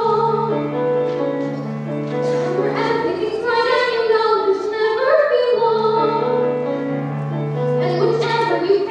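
A young woman singing a solo musical-theatre song, with vibrato on her held notes, over instrumental accompaniment with sustained low notes.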